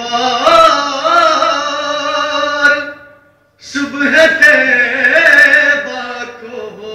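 A man's solo voice reciting a naat, the Urdu devotional poem in praise of the Prophet, in long, drawn-out melodic phrases. The singing breaks off briefly about three seconds in, then a new phrase begins.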